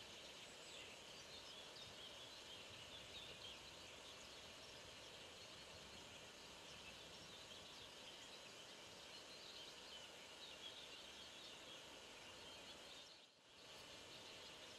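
Faint birds chirping over a steady low hiss of outdoor background noise, the sound dipping briefly near the end.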